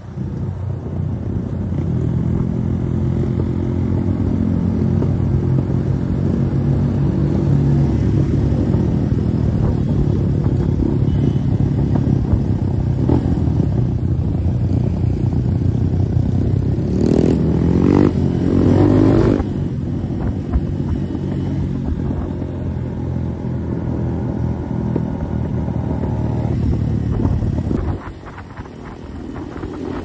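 Motorcycle engine running under way, its pitch rising and falling with the throttle. The note swells around the middle and drops off a couple of seconds before the end, then climbs again.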